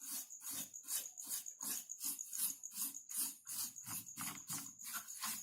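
A brush swept quickly back and forth over a computer's internal components to clear dust, in a steady rhythm of about four to five short strokes a second.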